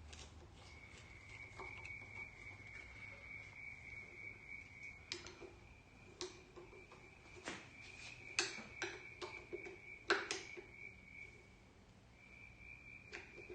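Scattered light metal clicks and taps of hand tools working on the carburettor's fuel fittings, thickest in the second half and loudest about ten seconds in. Under them runs a faint, steady high-pitched tone that drops out now and then.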